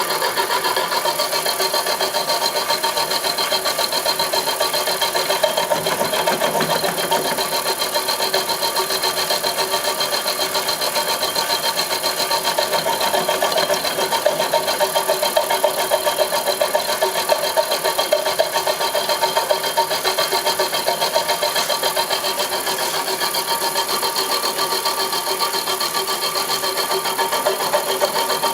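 Homemade milling machine running steadily: a continuous mechanical whir with several steady whining tones.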